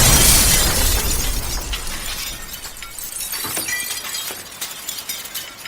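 A loud crash at the start that rings on and slowly fades away over several seconds.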